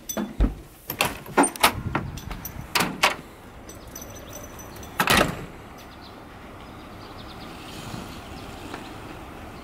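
Glass back door being unlatched and pushed open: a run of sharp clicks and knocks in the first three seconds, then one louder knock with a short rush about five seconds in as the door shuts, followed by a steady low hiss.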